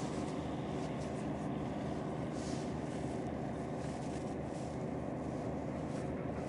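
Steady low engine rumble with a faint hum.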